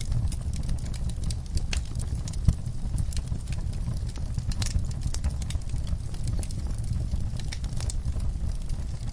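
Wood fire burning in a fireplace: a steady low rumble of flames with frequent irregular crackles and pops, one pop louder than the rest about two and a half seconds in.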